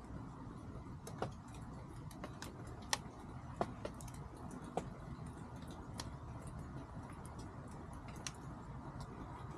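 Chickens pecking at feed: irregular sharp taps, scattered one or two at a time, the loudest about three seconds in, over a steady low background noise.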